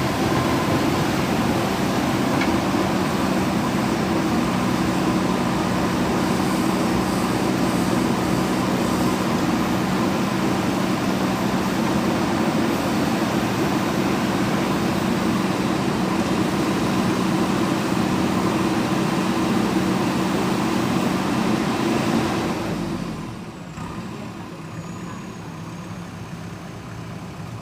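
Diesel engine of a JCB backhoe loader running steadily at working revs, dropping to a quieter, lower running near the end.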